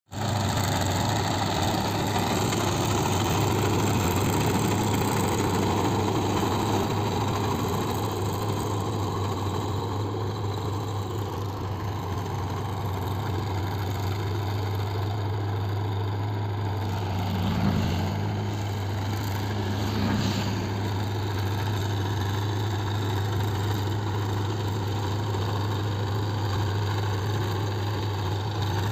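Mahindra Yuvo 575 DI tractor's four-cylinder diesel engine running steadily under load while it pulls a rotary tiller through dry soil. There are two brief louder swells, about 18 and 20 seconds in.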